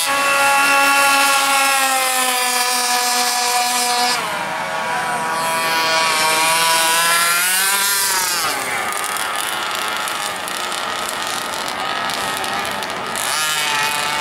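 Petrol-powered large-scale RC car's small two-stroke engine running at high revs. Its pitch holds high, drops sharply about four seconds in, then climbs and falls away again around eight seconds as the car passes.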